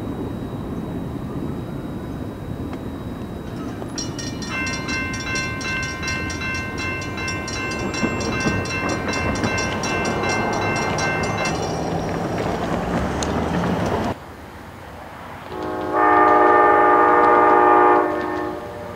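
Train horns. An unseen approaching train sounds one long horn blast over a low rumble from about 4 s to 11.5 s. Then, after a break, an Amtrak GE P40DC diesel locomotive sounds a short, loud horn chord of about two seconds near the end.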